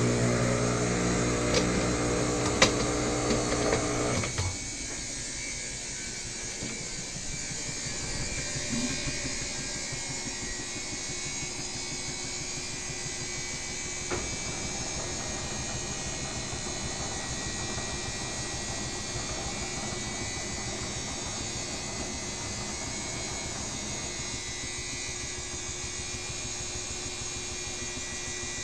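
Top-load washing machine draining: a loud steady electric hum that cuts off suddenly about four seconds in, followed by a quieter steady whirr.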